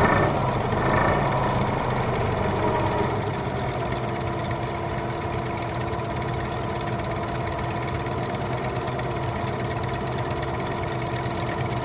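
Engine idling steadily, with a brief louder swell right at the start.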